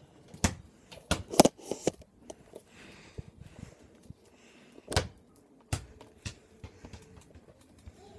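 A few sharp knocks and clicks at irregular intervals: a quick cluster about a second and a half in, and a single louder knock about five seconds in.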